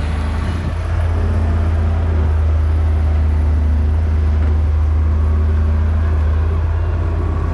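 Diesel engine of a JCB tracked excavator running steadily while it digs wet mud: a constant low drone that grows a little louder about a second in.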